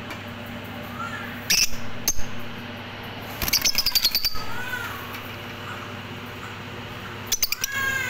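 Caged lovebirds chirping: loud, shrill chirps, single and in quick runs, with a few wavering arched calls between them.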